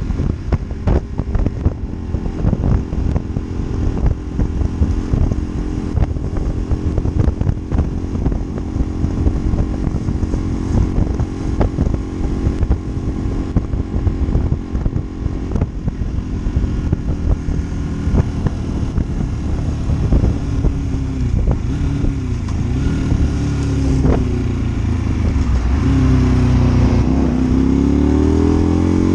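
Honda Varadero 125's V-twin engine running under way at a steady note. Around twenty seconds in, the note begins to dip and rise, and near the end it climbs as the bike accelerates.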